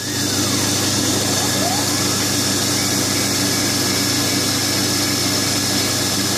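Milling machine running, its end mill cutting steadily into an aluminium block: a constant motor hum under the noise of the cut.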